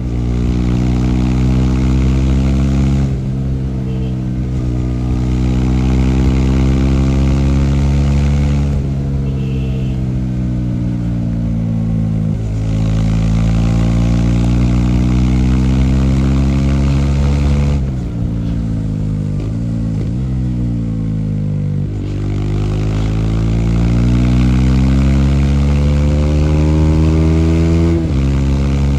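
Bajaj Dominar 400's single-cylinder engine under way: it pulls up through the gears, the pitch rising steadily and dropping sharply at each upshift. Twice it eases off, the pitch falling as the bike slows, with a couple of quick dips in the second slowdown.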